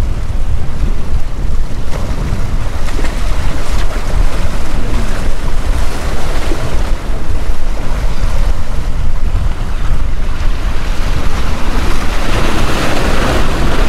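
Wind buffeting the microphone over surf washing and breaking against a rock groin, with a louder wave wash near the end.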